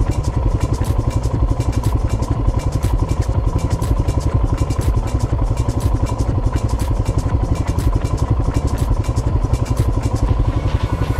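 Royal Enfield Himalayan's 411 cc single-cylinder engine idling while the bike stands still, with a steady, even beat of about ten pulses a second.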